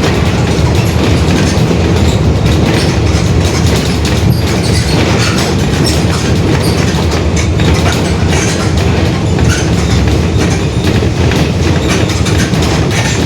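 Mercedes-Benz OF-1721 Bluetec 5 city bus under way, heard from inside: a steady diesel drone with road noise and many small rattles from the body, and the differential growling.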